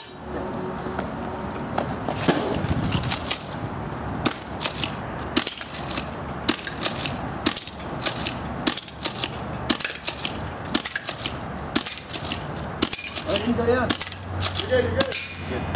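Airsoft gun firing a long string of single shots, sharp snaps coming irregularly about two or three a second, as the shooter works through the targets.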